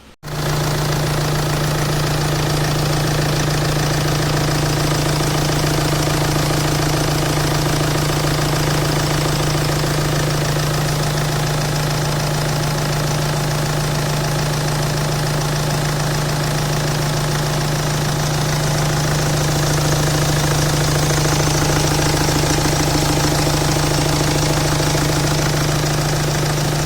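BMW N47 four-cylinder diesel engine running with a steady, rhythmic knocking, a little louder about twenty seconds in. The knock comes from worn connecting-rod (big-end) bearings, which the owner puts down to really bad oil servicing.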